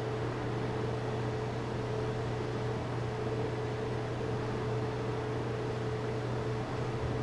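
Steady mechanical hum: a constant low drone with a steady higher tone above it, over an even hiss.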